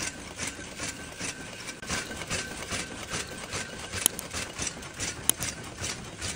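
Bolt-head hex forming machine running, a steady mechanical clatter of strokes repeating about three times a second. Two sharper metallic clicks stand out about four and five seconds in.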